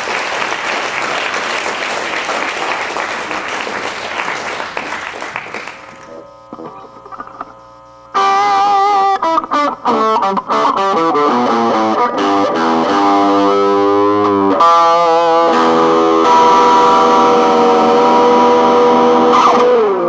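Audience applause that fades out over the first six seconds. Then a solo electric guitar comes in loud, playing quick bent and sliding notes, then long held notes, and ends on a note sliding down.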